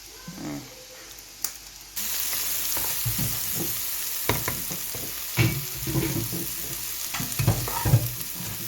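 Fried rice sizzling in a frying pan, starting suddenly about two seconds in. The rice is being stirred, with the utensil repeatedly scraping and knocking against the pan.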